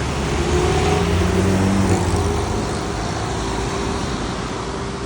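Road traffic on a city street: cars running past with a steady engine and tyre hum, a little louder about a second or two in.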